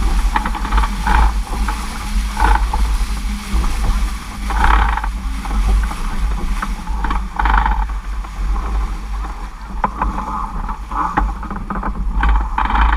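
Strong wind buffeting the microphone with a heavy, steady rumble, over water rushing and splashing against a sailing dinghy's hull in irregular surges.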